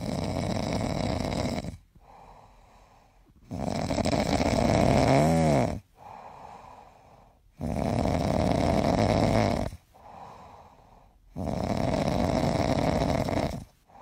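Sleeping dog snoring: four long, loud snores about every four seconds, with much quieter breathing between them. The second snore ends in a short wavering whistle.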